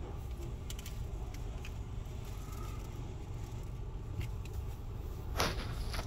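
Steady low rumble of an idling car, heard from inside its cabin, with a few faint clicks and one short hiss about five seconds in.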